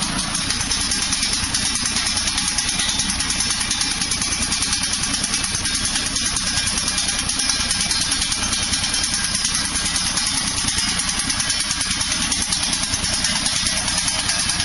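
Tractor engine running together with a hydraulic sickle bar trimmer whose reciprocating blades cut through berry bushes, making a steady, fast rhythmic clatter.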